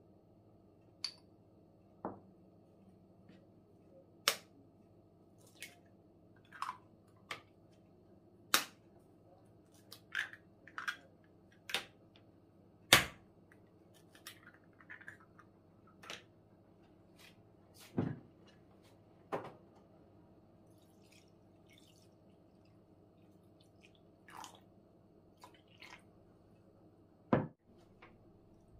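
Irregular sharp taps and clicks, about twenty in all and the loudest about halfway through, from eggs being cracked open and a spoon, shells, cup and plate being handled on a wooden table. A faint steady hum runs underneath.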